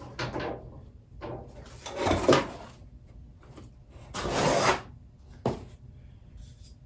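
Cardboard box and packaging being handled: several separate bursts of scraping and rubbing as parts are pulled out, with a short knock about five and a half seconds in.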